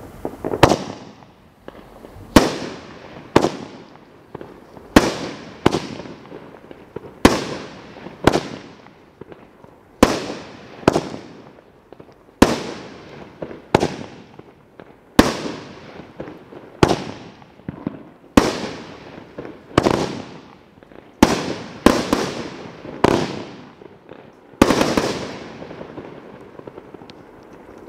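Cutting Edge 'Breakout' fireworks cake firing shot after shot: about twenty sharp reports, roughly one every second, each trailing off into crackle from its mine and crackling burst. The last shot near the end gives a longer crackling tail.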